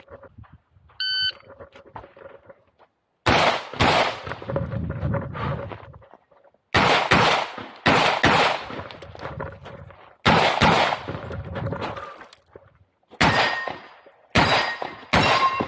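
Glock pistol firing an IPSC course of fire. An electronic shot-timer beep about a second in gives the start signal, then shots follow mostly in quick pairs with short pauses between the groups as the shooter moves and engages targets. Each crack trails off in echo.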